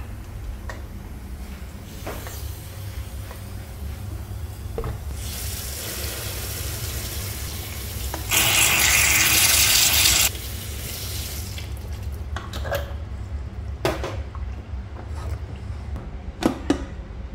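Kitchen tap water running onto a pressure cooker lid in a steel sink, cooling the cooker to bring its pressure down. The water is loudest for about two seconds in the middle, then stops, and a few sharp metal knocks follow as the cooker is handled, all over a steady low hum.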